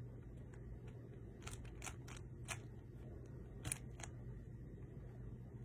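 Speed cube being turned by hand: a few faint clicks and snaps as its layers turn, the weird snap it makes when corner cutting.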